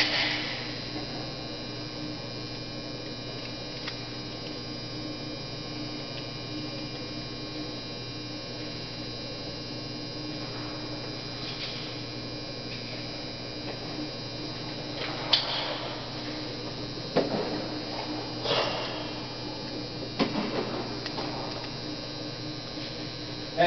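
Steady low hum, with a few brief knocks and clatters in the second half.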